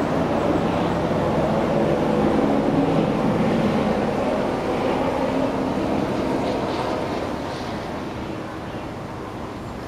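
Street traffic passing: engine hum and tyre noise from cars going by. It swells about two to three seconds in and dies down after about seven seconds.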